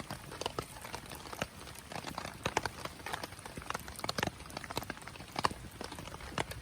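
Wood campfire crackling: irregular sharp pops and snaps, several a second, over a low steady hiss.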